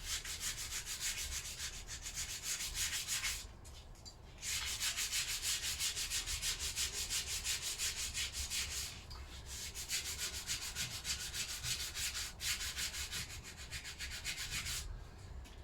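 Spongy sanding block rubbed back and forth by hand over a metal engine crankcase's gasket sealing surface, taking off paint, in quick rasping strokes of about four a second with a few short pauses.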